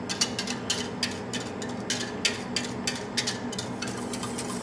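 Wire whisk clicking and scraping as sriracha is worked off a small plate and whisked into maple syrup in a stainless steel bowl: quick, irregular metallic ticks of the wires against the plate and the bowl.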